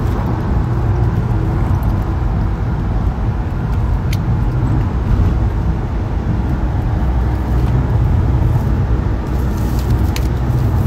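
Steady low rumble of a coach heard from inside its passenger cabin, with a faint click or two.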